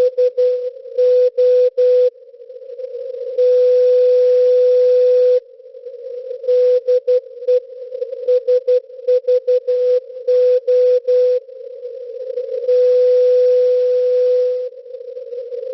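Morse code from SVO Olympia Radio, the maritime coastal station's call-sign marker on 8424 kHz, received on a shortwave radio in CW mode as a keyed tone of about 500 Hz over band hiss. Groups of dots and dashes alternate with an unbroken tone of about two seconds, which comes twice.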